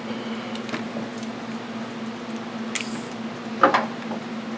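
Metal tools or parts being handled: a few light clicks, a short scrape, then a sharp clank about three and a half seconds in, over a steady low hum.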